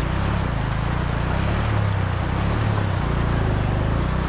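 Motorcycle engine running steadily at low revs as the bike moves slowly through floodwater flowing across the road, over a steady rush of water.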